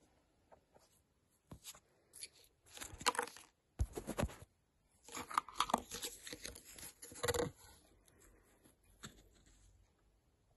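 Plastic blister packaging of a small toy being torn open and crinkled by hand: several bursts of crackling and tearing in the middle, with a few sharp clicks before and after.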